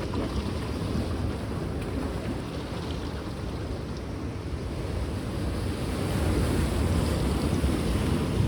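Black Sea surf washing on the shore, a steady rush that swells louder in the second half, with wind rumbling on the microphone.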